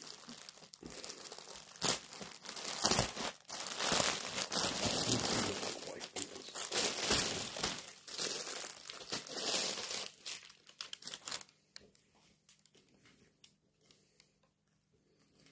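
Clear plastic packaging bag crinkling loudly as it is handled and a garment is pulled out of it. The crinkling dies down about eleven seconds in, leaving only faint, scattered rustles.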